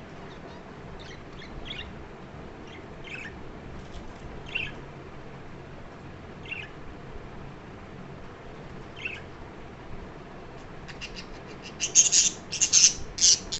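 Birds chirping: short high calls every second or two, then a much louder flurry of rapid calls near the end.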